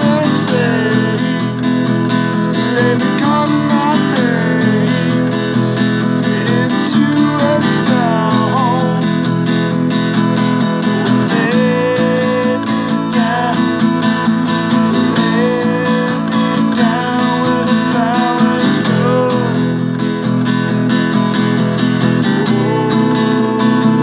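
Acoustic guitar strummed steadily in chords, with a man's voice singing over it.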